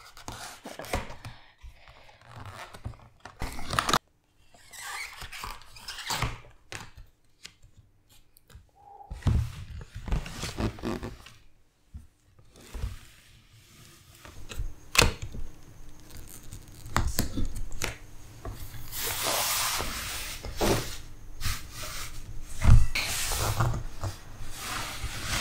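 A cardboard cake box being pulled open and folded down away from the cake: uneven bursts of card rustling, scraping and tearing, with short knocks on a wooden table, loudest about twenty seconds in.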